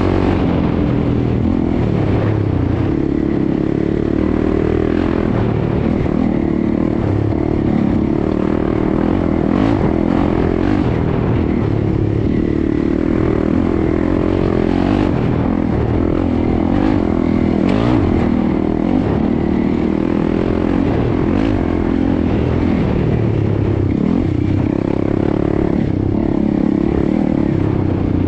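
Honda CRF300L's single-cylinder engine running hard, the revs rising and falling with the throttle. There is a constant clatter from the bike over rough dirt, with a few sharp knocks scattered through.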